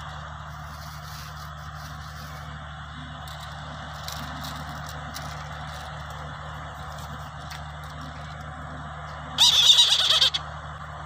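Brahminy kite giving its hoarse, whinnying scream once, about a second long near the end, over a steady low hum.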